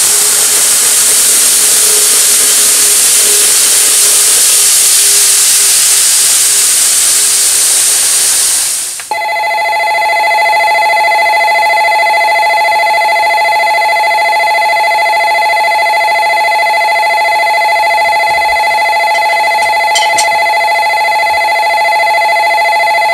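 A loud steady hiss for about nine seconds, then a station departure bell ringing continuously with a steady, multi-pitched electric ring, the signal that the train's doors are about to close. It cuts off suddenly at the end.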